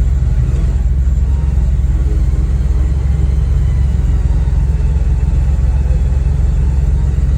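Vehicle engine running steadily, a loud low rumble.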